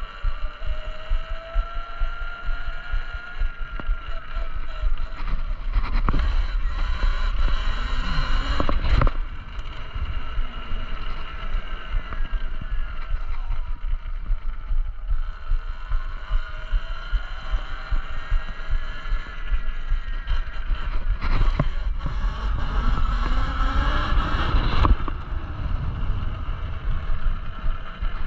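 Talaria Sting electric dirt bike's motor whining as it rides, the pitch gliding up and down with the throttle and surging twice as it is opened hard, over wind rumble on the microphone. A few sharp knocks come at the ends of the surges.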